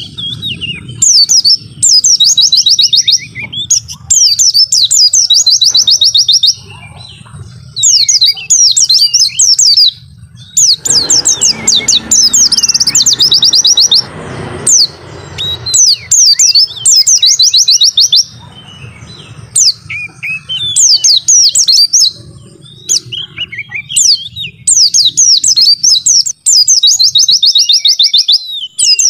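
White-eye (pleci) song: loud repeated phrases of quick high chirps running into a fast trill, one phrase about every two seconds, over a faint low hum, with a brief rush of noise around the middle.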